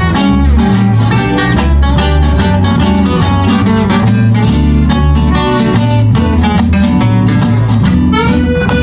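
Gypsy jazz (manouche) band playing an instrumental passage at a swinging tempo: acoustic guitar strumming a steady rhythm, double bass walking underneath, and accordion and mandolin on the melody.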